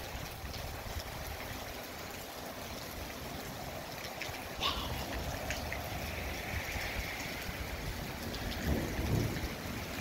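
Steady rain falling, with scattered drips and one sharper tap about halfway through. A few low rumbles swell up near the end.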